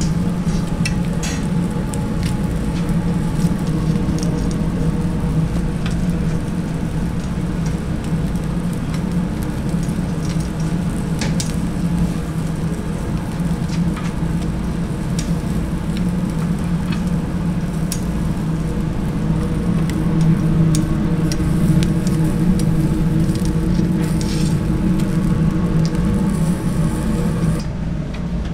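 Fish sizzling as it grills over briquette coals, with scattered sharp pops and clicks over a steady low hum. The sizzle cuts off suddenly near the end.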